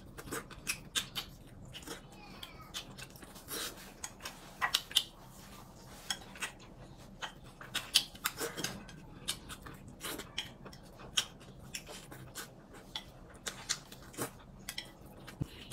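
Eating utensils clicking and tapping against bowls and plates as people eat: many light, irregular clicks.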